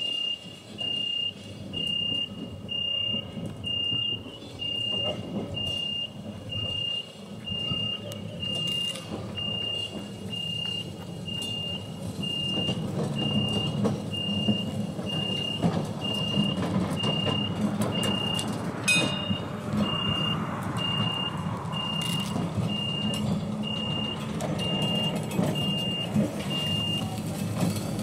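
Level crossing warning signal beeping at an even rhythm, a high electronic tone about twice a second, while Melbourne tram 103 runs closer over the track, its low rumble growing louder from about halfway through. A sharp click comes about two-thirds of the way in, and the beeping stops shortly before the end.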